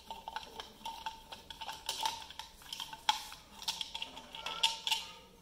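A screwdriver undoing the screws of a plastic wall switch plate, then the plate being eased off the wall: a run of small, irregular clicks and scrapes of metal on plastic.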